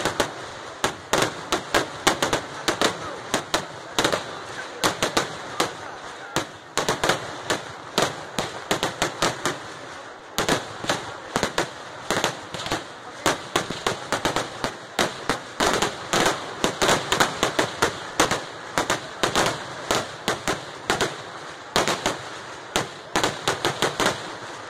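Daytime fireworks barrage (Kerala vedikettu): shells and crackers going off in a rapid, nearly continuous string of sharp bangs, several a second, with a short lull about ten seconds in.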